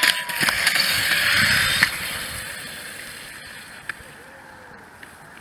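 Roller-ski wheels rolling fast on asphalt, with sharp clicks of the poles, building for about two seconds. The rolling noise then fades away as the skier leaves the asphalt for the grass in a deliberate emergency stop into the ditch.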